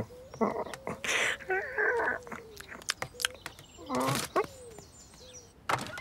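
A cartoon cat's vocal sound effects: short grunts and strained mews as it stretches and scrabbles over a wooden fence. Sharp clicks and scratches of claws on wood run among them.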